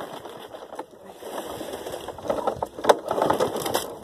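Knocks and rattles of a 2007 Snapper self-propelled walk-behind mower being handled and tipped back on its rear wheels, with its engine not running. The sharpest knock comes about three seconds in.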